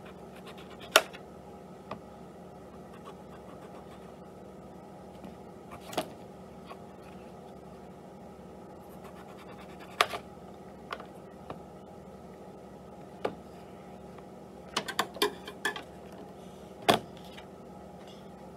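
Kitchen clatter of utensils and hard surfaces: about a dozen scattered sharp knocks and clicks, several bunched together near the end, over a steady low hum.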